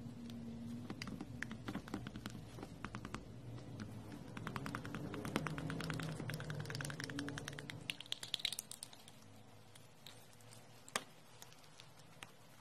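Metal spoon stirring and scraping thick paint in a small glass cup: rapid light clicks and taps against the glass, with a rising scraping tone as the paint is scooped out. It turns quieter near the end, with one sharp tap.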